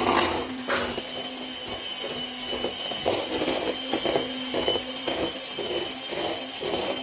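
Electric hand mixer running steadily, its beaters whisking brownie batter in a stainless steel bowl, with uneven knocks and scrapes of the beaters against the bowl.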